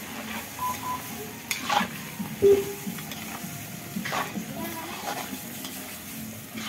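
Goat meat sizzling in a wok over an open wood fire, with a few sharp crackles from the burning wood.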